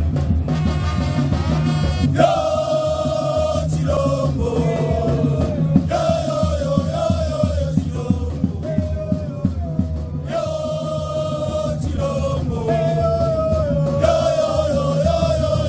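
Music: a sung melody over a steady drum and bass beat.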